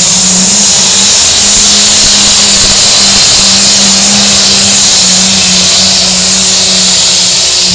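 Diesel pulling tractor running flat out under load on a test pull: one loud, steady engine drone with no breaks, easing off slightly at the very end.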